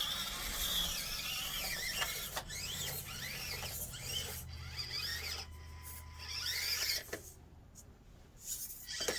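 Electric RC rock crawler (Axial Deadbolt) motor and drivetrain whining, the pitch rising and falling over and over with the throttle as it crawls over obstacles; it goes quieter for the last couple of seconds.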